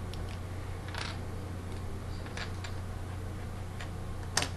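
Scattered light clicks of plastic Lego bricks being picked up and handled, a few in all, the sharpest near the end, over a steady low hum.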